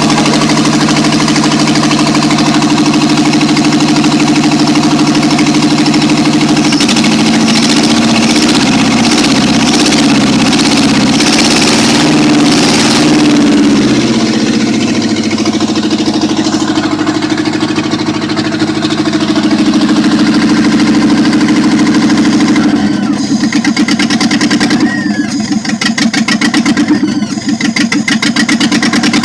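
Car engine running, with a steady note that shifts about seven seconds in and turns uneven and pulsing near the end.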